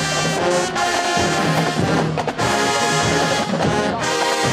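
Marching band brass section playing loud, sustained chords, broken by brief cutoffs between phrases about one, two and four seconds in.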